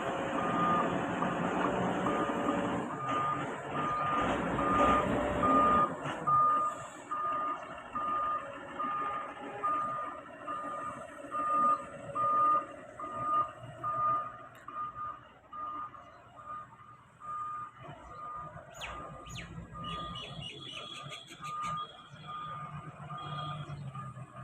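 Warning alarm on heavy machinery beeping steadily, about one beep a second, over a diesel engine running, louder for the first several seconds and again near the end, with a few metallic clanks near the end.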